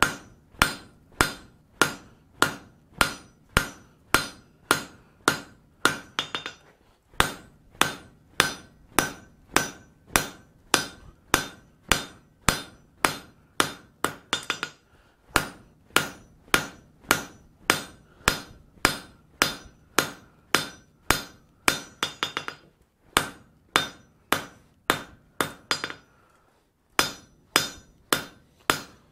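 Hand hammer striking red-hot steel on an anvil in a steady rhythm of about two and a half blows a second, each blow ringing off the anvil, broken by a few short pauses as the bar is turned. The smith is drawing a leg of the bar down to thickness.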